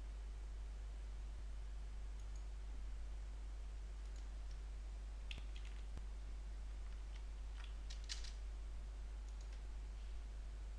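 Scattered computer mouse clicks and keyboard keystrokes over a steady low electrical hum, the loudest cluster of clicks about eight seconds in.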